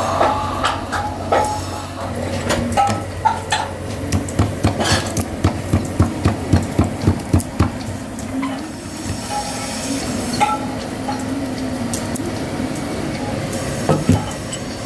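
Metalwork in a fan workshop: metal parts clanking with short ringing clinks. In the middle comes a run of about a dozen quick, evenly spaced knocks, about three a second, over a steady low hum.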